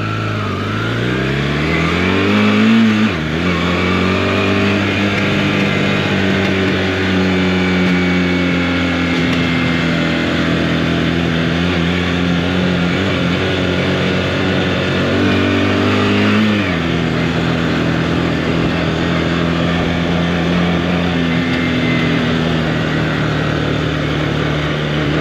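Honda CB450T's parallel-twin engine pulling the motorcycle away, rising in pitch and then dropping suddenly about three seconds in as it shifts up. It then runs fairly steadily at road speed, rising again and shifting up at about sixteen seconds, with wind rushing over the microphone. The engine is still cold and running with the choke out.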